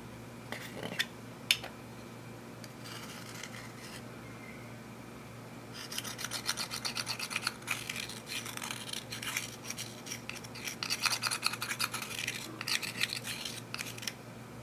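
Makeup and clear slime being worked by hand: a few sharp clicks about a second in, then from about six seconds on, dense rapid scratchy crackling that comes in waves.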